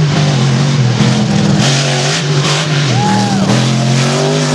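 Monster truck engine running loud as the truck drives across a dirt arena, its note breaking and shifting as the throttle is worked.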